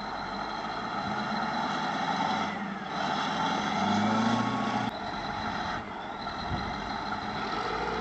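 Heavy diesel engines of two push-pull wheel tractor scrapers working hard under full load while climbing a steep embankment. The engine noise swells for a couple of seconds in the middle.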